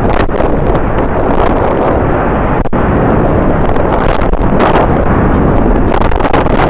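Strong wind buffeting the microphone: a loud, continuous rumbling roar with irregular gusts.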